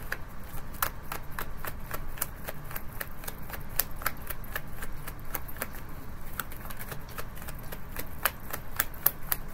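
Tarot cards being shuffled by hand, the cards slapping against each other in a quick, irregular run of clicks, several a second.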